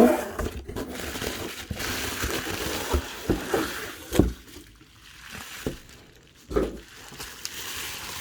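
Packaging being handled: plastic wrap and box crinkling and rustling, with a few light knocks, the loudest about 4 seconds in.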